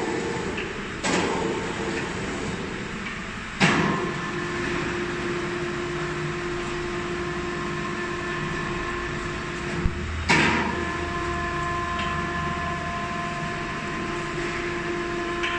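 Jib crane's electric hoist running: a clunk as the motor starts, then a steady electric motor whine. It stops and starts again with another clunk about ten seconds in.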